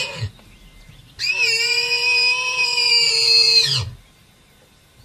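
Warthog giving distress squeals. The tail of one squeal cuts off just after the start, then a long, high, steady-pitched squeal lasts about two and a half seconds and drops off at its end.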